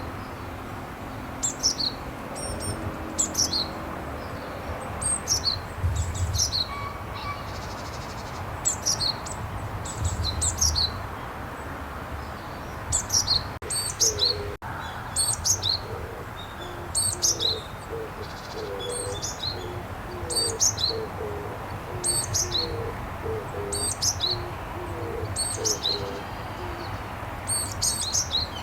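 Japanese tit singing its 'tsupi-tsupi' song, a high two-note phrase repeated about every second and a half. From about halfway through, faint low repeated notes sound underneath.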